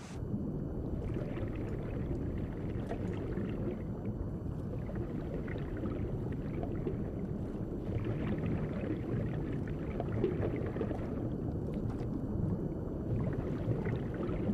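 Muffled underwater rumble with the crackle of a scuba diver's exhaled bubbles from the regulator, the crackle coming and going in bursts.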